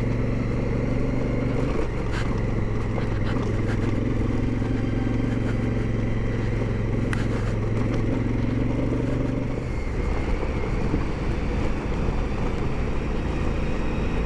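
Big adventure motorcycle's engine running at steady speed on a gravel road, with wind and road rumble. About ten seconds in the engine note drops away, leaving a lower rumble.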